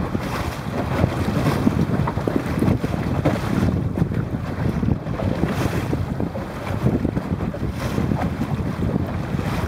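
Wind buffeting the microphone in gusts, a low rumbling rush, over choppy water splashing and lapping.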